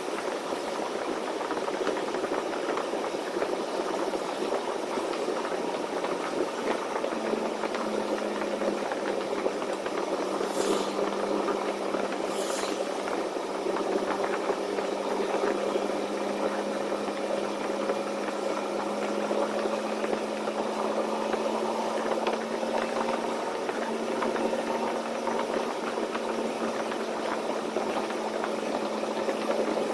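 Semi-truck engine running steadily while driving, a constant engine drone over road noise. Two brief hisses come about ten and twelve seconds in.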